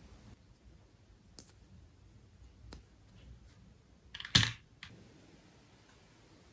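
Small hard-plastic toy pieces clicking as a miniature bottle is set into a little plastic toy basket: a few light taps, then a louder clatter about four seconds in.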